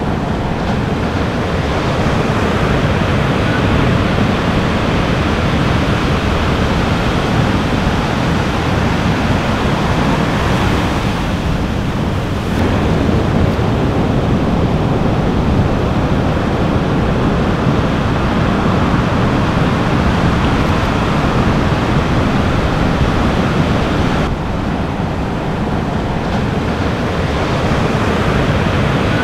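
Ocean surf washing and breaking in a steady, loud rush of noise, with wind rumbling on the microphone.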